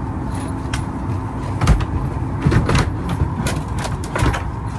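Steady low hum of a Boeing 737 MAX 9's cabin during boarding, with a faint steady tone over it. Several short knocks and rattles break in, about four of them.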